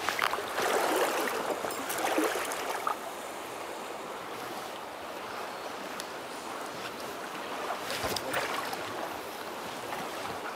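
Shallow, rocky mountain stream flowing: a steady rush of water, louder and more uneven in the first three seconds, with a brief sharp click about eight seconds in.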